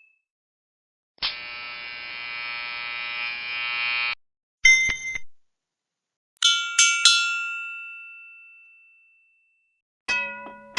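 A string of separate sound effects: a steady electric buzz lasting about three seconds, then a short double metallic strike, then three struck metallic tones that ring out, and near the end a quick run of struck metallic tones.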